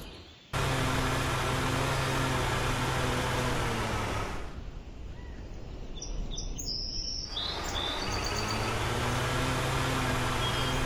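Steady low engine hum, like a truck idling, dubbed over die-cast Dinotrux toy vehicles; it fades out about four seconds in and returns about three seconds later. Birds chirp briefly while the hum is down.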